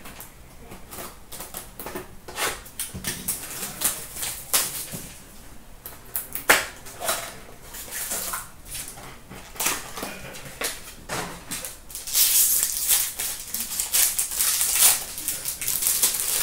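Trading card packaging being handled: scattered clicks and rustles of a cardboard card box and its packs, then, about twelve seconds in, a few seconds of dense crinkling as a card pack wrapper is worked open.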